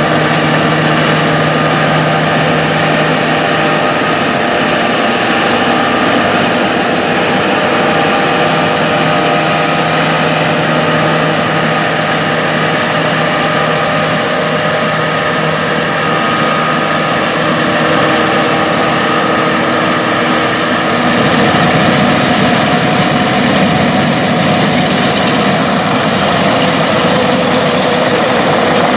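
John Deere S780 combine harvesters running while harvesting wheat: a loud, steady engine and machinery drone with several steady whines. About three quarters of the way through it shifts and grows a little louder.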